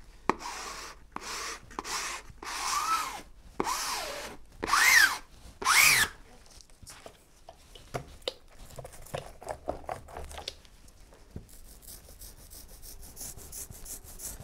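Plastic squeegee dragged in about six firm strokes over peel ply on wet epoxy, pressing it down onto a glass-cloth-sheathed panel; the last two strokes squeak, rising and falling in pitch. Then come quieter clicks and handling, and near the end the faint scrape of a foam roller applying epoxy.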